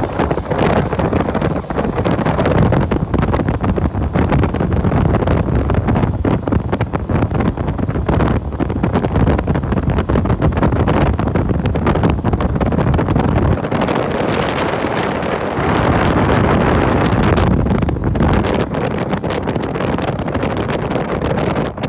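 Loud wind rushing and buffeting over the microphone of a phone carried on a moving motorbike, with the motorbike running underneath.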